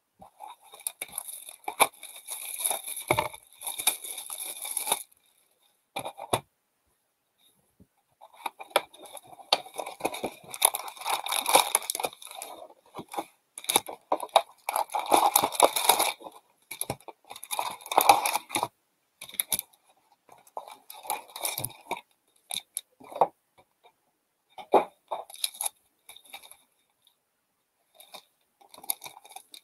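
An Upper Deck hockey hobby box being torn open and its foil-wrapped card packs pulled out and set down, crinkling and rustling in irregular bursts with short pauses.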